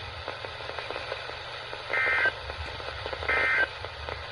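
Two short bursts of Emergency Alert System data tones, a rasping two-tone warble about a second apart, over faint radio hiss and hum: the end-of-message signal that closes a weather alert broadcast.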